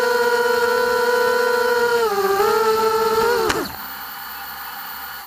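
Quadcopter's Lumenier 2206 2000kV brushless motors and props whining steadily, dipping briefly in pitch about two seconds in. About three and a half seconds in, the motors spin down with a sharp falling whine and a click as the throttle is cut, leaving a faint steady hiss.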